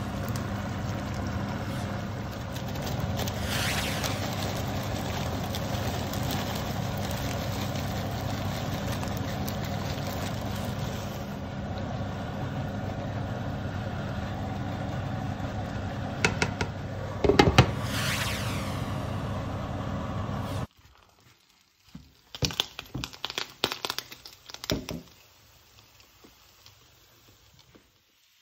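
Kitchen sounds of cooking in a pan on a stovetop: a steady hiss with a low hum, and a few sharp knocks of a utensil against the pan about two-thirds through. After an abrupt cut it is much quieter, with a short run of clattering clicks and knocks.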